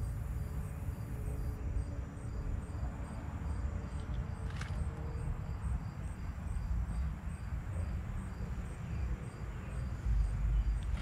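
Insects chirping in a steady, even pulse of about two to three high chirps a second, over a low rumble. One sharp click about four and a half seconds in.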